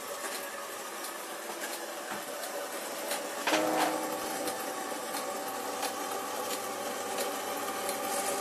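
Brass clockwork mechanism of a mechanical weather-forecasting machine running: a steady mechanical whir with several held tones and scattered light clicks. It grows louder, with new tones, about three and a half seconds in.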